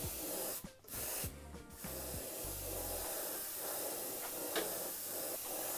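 Airbrush hissing as paint is sprayed onto a wooden lure, the spray breaking off twice in the first two seconds as the trigger is let go.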